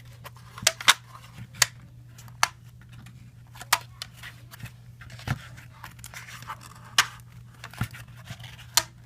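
Cardboard pieces of a VR headset being handled and pressed together: about ten sharp, separate clicks and taps, irregularly spaced, over a steady low hum.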